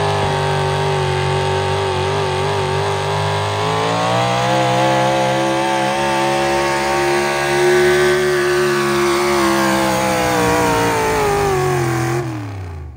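Pulling vehicle's engine held at high revs under full load during a pull. Its pitch climbs slightly about four seconds in, holds, then drops and dies away near the end.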